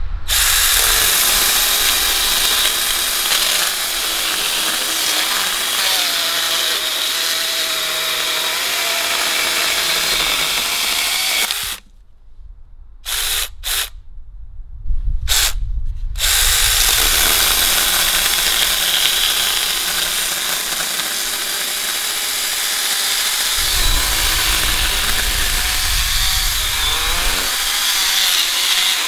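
18V battery-powered mini chainsaw (Makita battery-compatible) running and sawing through a small log. About twelve seconds in the motor stops, is switched on for a few short bursts, then saws steadily again.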